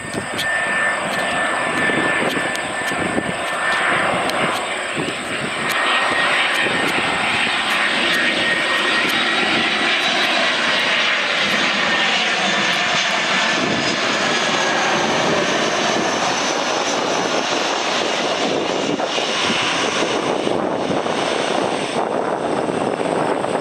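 Airbus A319 airliner on final approach passing close by, its twin jet engines running with a steady rushing noise and a high fan whine over it through the first half, then continuing as the jet descends toward the runway.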